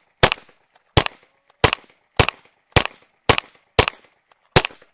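Ruger PC Carbine 9mm semi-automatic rifle firing eight shots in steady succession, about one and a half shots a second.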